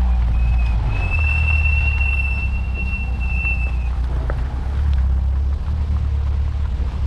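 Steady low rumble of a motor vehicle on the move, with a thin high-pitched tone held over the first four seconds or so.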